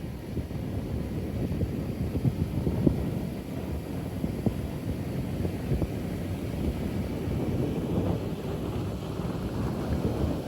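Wind buffeting the microphone: a low, uneven rumble with irregular gusty thumps.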